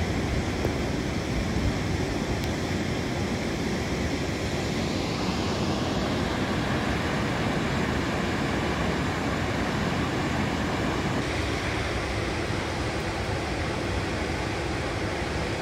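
Waterfall rushing with a steady, dense noise, shifting slightly in tone about five and eleven seconds in.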